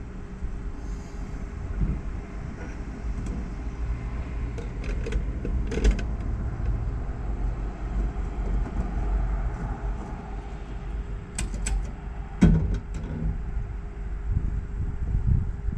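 Fiat 124 Spider Abarth's 1.4-litre turbo four-cylinder idling with a steady low rumble. Several sharp clicks come about five seconds in and again near eleven seconds, with a thump, the loudest sound, about twelve and a half seconds in.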